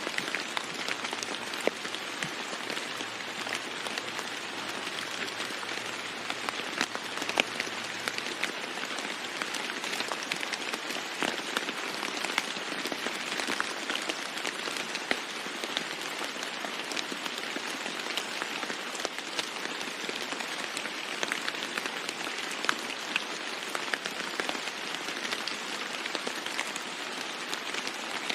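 Steady rain falling on a roof, a dense even patter with many sharp individual drop hits.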